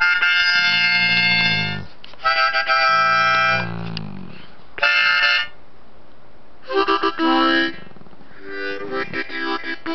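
Harmonica played in several short chords with pauses between them. Under the first two chords a dog hums low along with it, its pitch rising and falling.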